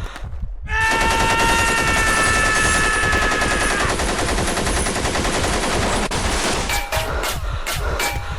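Sustained rapid machine-gun fire starting just under a second in, with a high pitched tone over it that slides down and fades after about three seconds. Separate sharp shots follow near the end.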